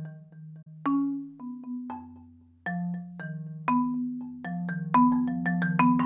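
Five-octave Yamaha marimba played with four mallets: struck chords and melody notes over low bass bars that ring on for a second or more. The strikes come quicker from about five seconds in.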